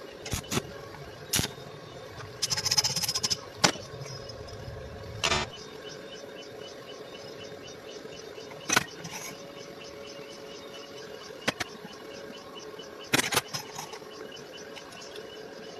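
Sharp metal knocks at irregular intervals over a steady hum, with a brief rapid crackle about two and a half seconds in.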